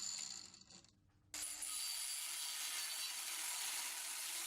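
Proxxon LHW/A cordless long-neck angle grinder running, heard faintly as a steady hiss with a thin high whine. It cuts out for about half a second shortly after the start, then carries on as before.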